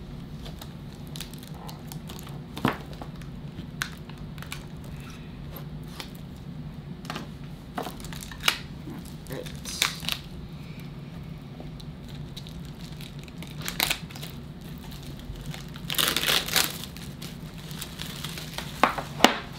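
Plastic wrapping on trading-card packaging crinkling and tearing, with scattered sharp clicks and a longer crinkling burst about 16 seconds in, as a sealed Topps tin of cards is unwrapped and opened.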